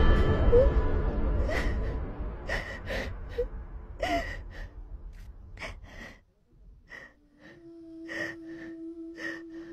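A frightened woman gasping and breathing hard in short, separate breaths, over a loud rumbling boom that fades away over the first few seconds. A steady low tone comes in near the end.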